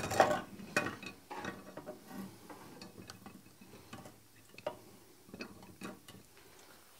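Light metal clinks and knocks of blacksmith's tools being handled. There is a sharp click at the start and a cluster of knocks in the first second and a half, then a few scattered ticks.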